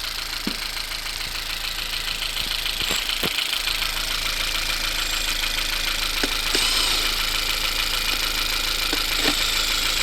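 1.5-litre turbocharged car engine idling smoothly, with no misfire now that the dead spark plug has been replaced. A few light clicks and taps sound over the idle.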